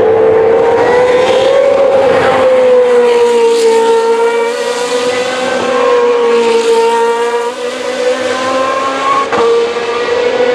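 Formula 2 race car's 4.0-litre V8 engine running at a high, fairly steady pitch that rises and falls gently, with no sharp gear changes.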